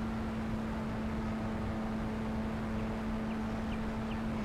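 Electric motor and propeller of an E-flite P-51 Mustang RC plane in flight, heard from the plane itself: a steady drone at an unchanging pitch, with wind rushing over the microphone.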